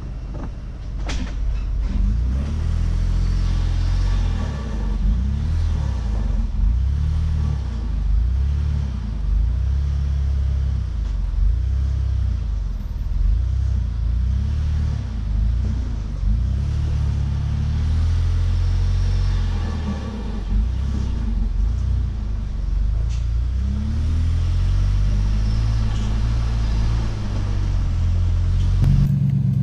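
Off-road truck engine working at low speed, its pitch rising and falling with repeated throttle changes as it crawls over trail obstacles. A sharp click about a second in, and a steadier drone near the end.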